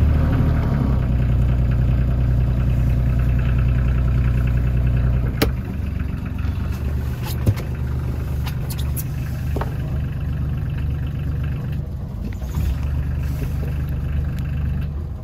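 Volvo Penta inboard diesel engine running steadily, dropping to a quieter idle with a click about five seconds in. Near the end it is shut off with the stop button and dies away.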